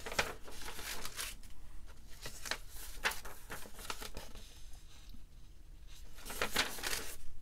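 Large printed paper schematic sheets being leafed through and handled, an irregular run of rustling, crinkling strokes, loudest near the end.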